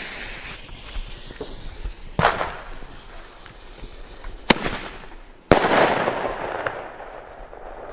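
Lesli Thunder Kong MAX 19 mm bombette tube firing: a hiss, then sharp bangs as its bombettes burst, the loudest about two, four and a half and five and a half seconds in. The last bang is followed by a crackling fizz that fades within about two seconds.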